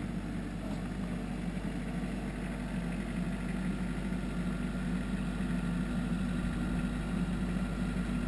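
Compact tractor's engine running steadily as the tractor drives with its loader bucket raised, growing gradually louder as it comes closer.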